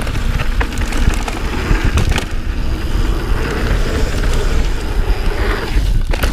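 Mountain bike riding down a dirt downhill trail: wind buffeting the action camera's microphone, tyres rolling on loose dirt, and short knocks and rattles from the bike over the bumps.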